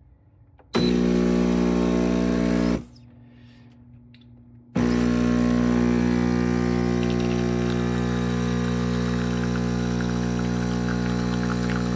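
LERTIN 20-bar espresso machine's pump running with a steady buzz, cutting out after about two seconds and starting again two seconds later, then running on.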